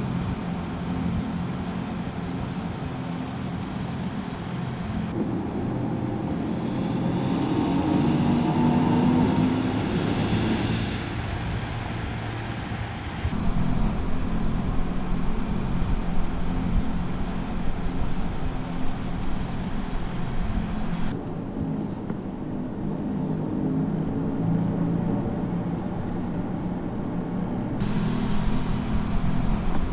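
Mercedes-AMG EQS 53 electric sedan driving: a steady low electric hum with tyre noise, whose pitch rises and falls for several seconds a third of the way in. The sound changes abruptly several times.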